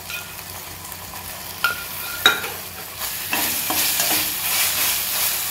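Onions and ginger-garlic paste sizzling in a stainless steel kadai while a metal spatula stirs and scrapes them around the pan. A couple of sharp metal taps come in the first half, and the stirring and sizzling grow louder from about three seconds in.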